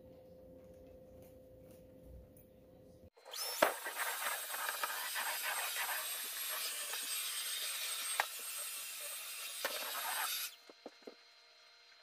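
Stick vacuum running: a loud, steady rushing hiss with a thin high whine. It starts abruptly a few seconds in and cuts off suddenly near the end, with a few sharp clicks along the way. Before it there is only a faint steady low hum.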